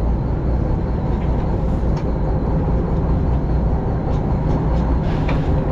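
Fishing boat's engine running steadily with a low drone.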